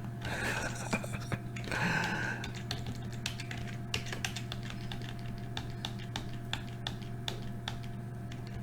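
Computer keyboard and mouse being used: scattered, irregular clicks and key taps, over a steady low electrical hum.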